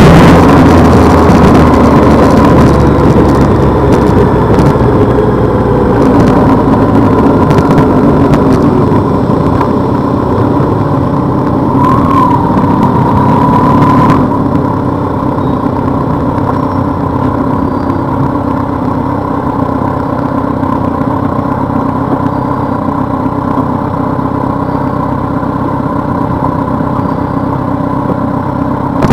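Motorcycle engine running steadily under way, with road and air noise; it gets a little quieter after about fourteen seconds.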